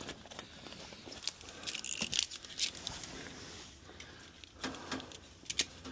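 Scattered light clicks, small rattles and short rustles of handling: a knife being got out and used on the fridge's packaging or protective covering.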